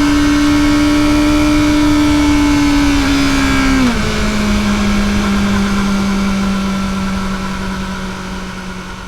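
Kawasaki ZX-4RR's 399 cc inline-four running through its stock exhaust under way. Its note sinks slowly, drops abruptly to a lower steady pitch about four seconds in, then holds while fading out.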